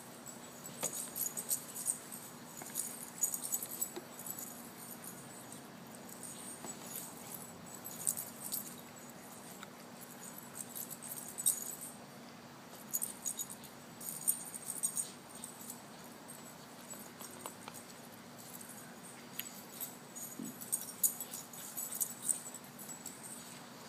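A puppy at play, with irregular bursts of light metallic jingling and rattling that come and go in clusters, over a faint steady hum.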